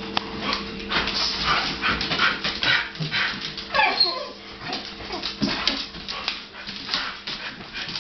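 Dogs whining and whimpering eagerly while waiting for a food treat, with quick breathy huffs in between and a drawn-out falling whine about four seconds in. A faint steady hum runs underneath.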